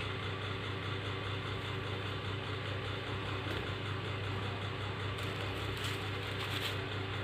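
Steady low background hum, unchanging throughout, with a few faint soft clicks or rustles about five to seven seconds in.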